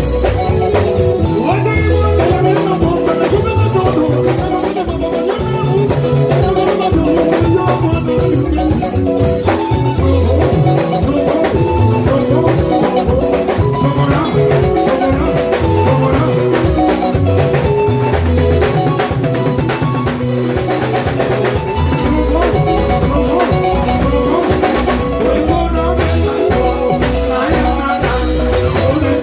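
A band playing Congolese rumba, with a steady drum-kit beat, a pulsing bass and busy melodic lines.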